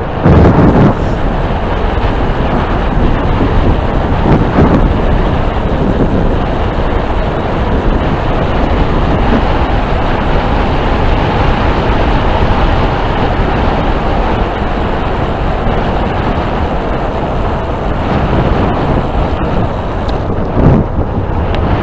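Wind buffeting the microphone of a camera riding on a moving electric bicycle. It makes a loud, steady rushing rumble, with brief louder swells just after the start, about four seconds in, and near the end.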